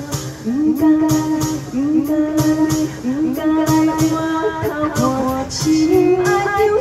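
A woman singing a slow ballad through a handheld microphone, sliding up into long held notes, over instrumental accompaniment with a steady beat.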